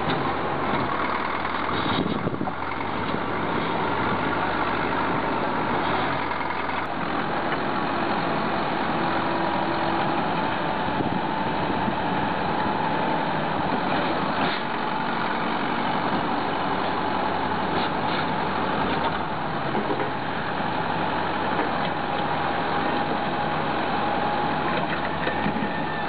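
Diesel engine of an old crawler bulldozer running steadily as the machine pushes its blade against a large boulder.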